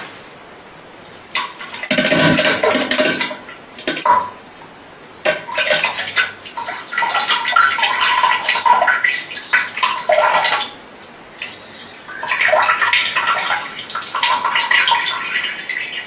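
Diarrhea sound effect: wet, spluttering bowel noises and splatter in several bursts of a few seconds each, with short pauses between.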